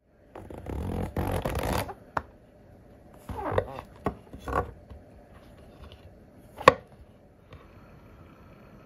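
Kitchen preparation sounds: first about a second and a half of dense crackling and rustling handling noise, then a chef's knife cutting through a king oyster mushroom onto a wooden cutting board in two short strokes, and a single sharp click about two-thirds of the way through.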